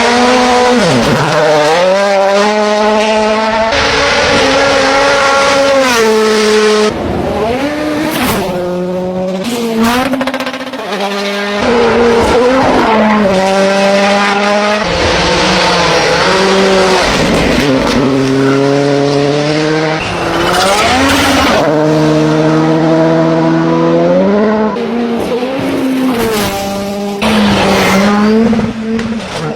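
Rally car engine revving hard at full throttle, its pitch climbing and then dropping sharply again and again as it shifts gear and lifts off, over a steady hiss of tyre noise.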